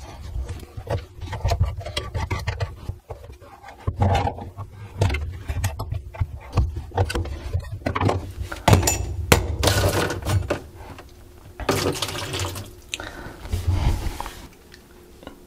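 Clicks and scrapes of plumber's pliers and hands working the slip nuts of a chrome sink P-trap. In the second half, water left in the trap pours and splashes out into a plastic catch container as the trap comes off.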